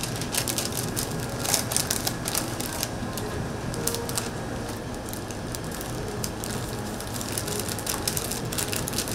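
Paper sandwich wrapper crinkling and rustling in quick irregular crackles as a sandwich is folded up in it by hand, over a steady low hum.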